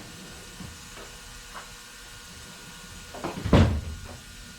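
Steering rack parts and hand tools being handled: a few light clicks, then a cluster of knocks with one loud clunk about three and a half seconds in.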